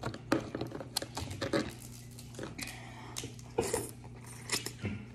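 Cooked Dungeness crab shells clicking and crackling as the legs are picked out of the tray and broken apart by hand, with wet sucking and chewing of the crab meat. A brief voice sound comes about three and a half seconds in.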